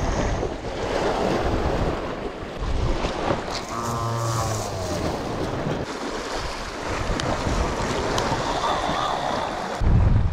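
Sea surf washing on a rocky shore with wind gusting on the microphone, the wind buffeting much heavier near the end. A brief pitched tone, sliding slightly downward, sounds about four seconds in.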